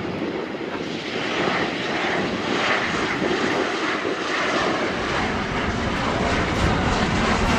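Jet airliner engine noise, a steady rushing sound that slowly grows louder and deeper as the plane passes.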